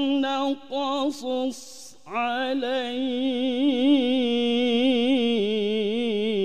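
Solo male voice reciting the Quran in the melodic mujawwad tilawah style. It sings the words "man lam naqṣuṣ" in short syllables, pauses briefly, then holds one long note with a fast ornamental waver that steps down in pitch near the end.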